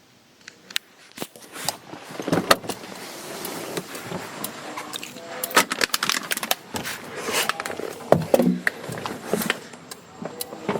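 Car keys jangling among a run of clicks, knocks and rattles as a person gets out of a parked car, with sharp knocks about two and a half seconds in and again about eight seconds in.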